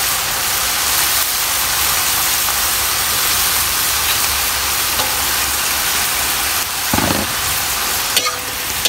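Green beans, cabbage, carrot and liver sizzling steadily in a hot steel wok, with a few light clicks near the end.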